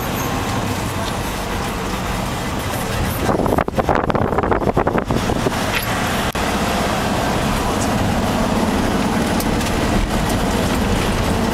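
Ride vehicle rumbling steadily along its course; about three seconds in, a burst of rapid rattling lasts for a second and a half.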